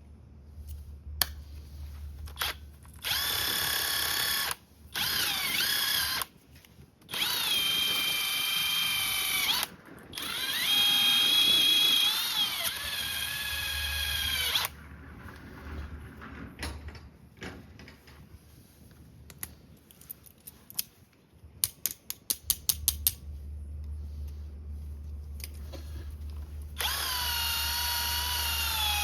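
Handheld power tool motor, like a cordless drill, whining in bursts of one to five seconds, its pitch dipping and rising again as it takes load. A quick run of about eight sharp clicks comes a little past the middle, and the motor starts again near the end.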